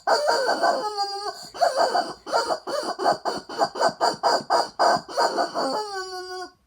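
Rubber chicken squeezed over and over, squawking: a drawn-out squawk about a second in, then a quick run of short squawks about four a second, ending in a longer held squawk near the end.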